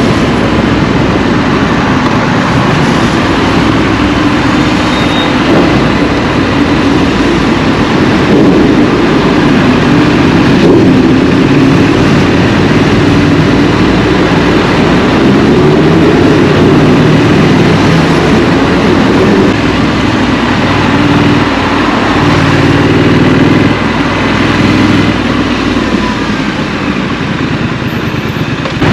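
Triumph Street Scrambler's 900 cc parallel-twin engine on the move, its note rising and falling again and again as the throttle opens and closes, over a steady rush of wind and road noise.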